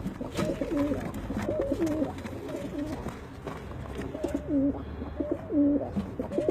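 Domestic doves cooing over and over, a run of short coos that each step down from a higher note to a lower one, with a pause in the middle.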